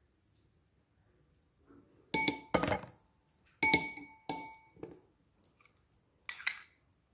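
A metal teaspoon clinking against porcelain cups and small ceramic bowls as spices are spooned out: about five sharp, ringing clinks, the loudest about two and a half seconds in.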